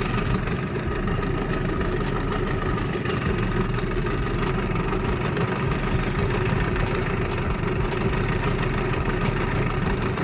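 Evinrude outboard motor running steadily at low trolling speed, pushing the jon boat.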